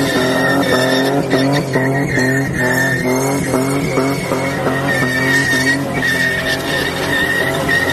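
Car doing a burnout: the engine is held at high revs, its pitch pulsing up and down about twice a second, over a steady high tyre squeal from the spinning rear tyres.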